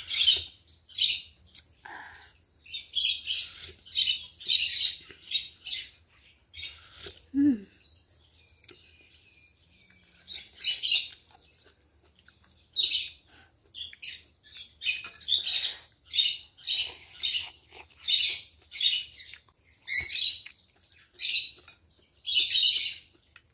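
Repeated short slurps of curry laksa noodles and broth, coming in quick clusters with brief pauses between them.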